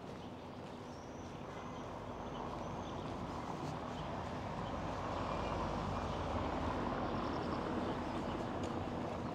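Street traffic: the noise of road vehicles swells steadily over several seconds and then holds, with a few faint bird chirps.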